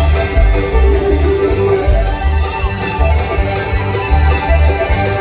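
Live bluegrass band playing an instrumental passage led by the fiddle, with mandolin and guitar chop and an upright bass thumping out about two notes a second.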